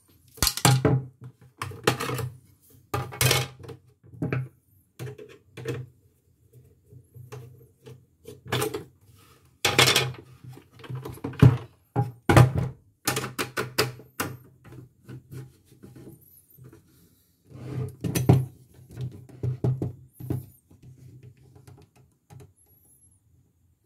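Irregular knocks, clicks and thunks of a plastic-cased portable embroidery machine being handled, lifted by its carry handle and set down on a wooden table, over a low steady hum.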